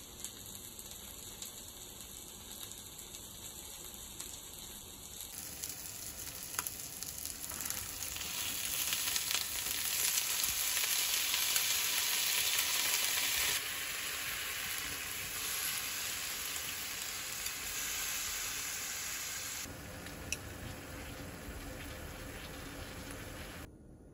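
Chicken and frozen vegetables sizzling in a frying pan. The sizzle swells to its loudest a few seconds in, steps down in stages, and stops near the end.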